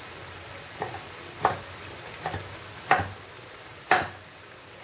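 Bamboo-shoot stir-fry simmering in sauce in a frying pan on a gas stove: a steady low hiss with sharp bubble pops about once a second, the loudest about three and four seconds in.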